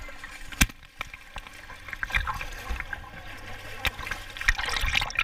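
Pool water splashing as a child swims: irregular splashes and sloshing, with one sharp splash about half a second in and the busiest splashing near the end.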